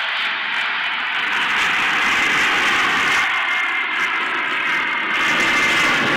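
Boeing C-17 Globemaster III's four turbofan engines running in flight overhead: a steady rush with a faint high whine through the middle.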